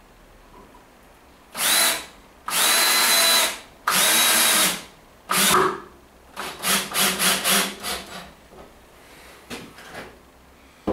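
Cordless drill with a crosshead bit driving 100 mm wood screws into timber. The motor whines in separate runs: a short one, two longer runs of about a second each and another short one, then a quick string of short trigger blips.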